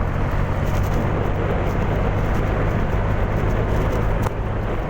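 Honda Genio scooter on the move: a steady low engine hum under even wind and road noise, dropping a little in level about four seconds in.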